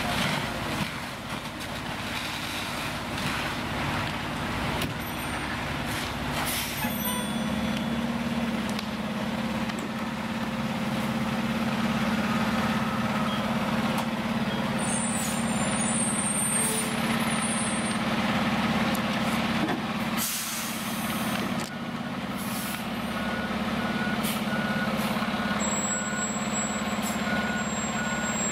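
Fire apparatus diesel engines running steadily, the engine note stepping up and holding about seven seconds in. Near the end a truck's backup alarm beeps about twice a second.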